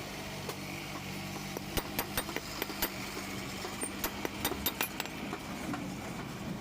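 Irregular sharp metallic clicks and clinks from hand work on a motorcycle's drive chain, over a low steady hum that fades out about halfway through.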